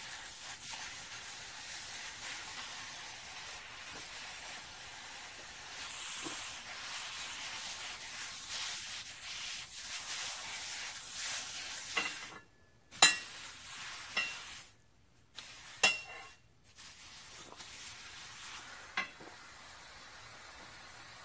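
Welding arc sizzling steadily with a frying crackle for about twelve seconds. Then come several sharp metallic clinks, each with a short ring, with brief quiet gaps between them.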